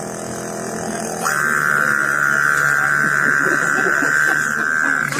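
A boy imitating a running diesel generator with his voice: a steady droning hum, joined about a second in by a louder, higher buzzing that holds evenly and cuts off near the end.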